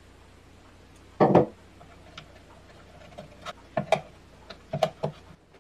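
A small hand tool clicking and knocking against the balance weights on a plywood blower impeller as they are tightened. There is one loud knock about a second in, then a quick cluster of lighter clicks near the end.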